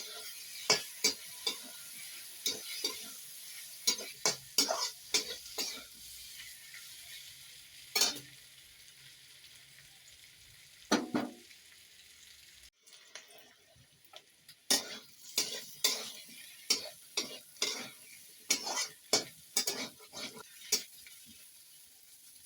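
Potatoes frying in spiced oil and tomato in a karahi with a steady sizzle, stirred with a spatula that scrapes and knocks against the pan in irregular strokes.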